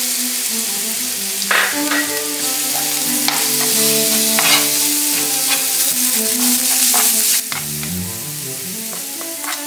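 Minced garlic, chili, shallot and lemongrass sizzling in hot oil in a nonstick frying pan, stirred with a spoon that scrapes and clicks against the pan now and then. The sizzle drops sharply near the end.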